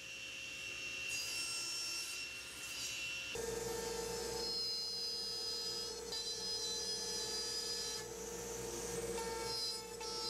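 Router table running with a steady whine as a board is pushed across the bit with a push block to cut a groove. It starts abruptly about three seconds in, after a quieter steady machine tone.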